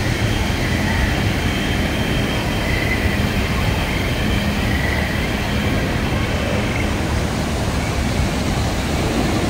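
Steady outdoor roar of street traffic mixed with the rush of an artificial waterfall, with no single sound standing out.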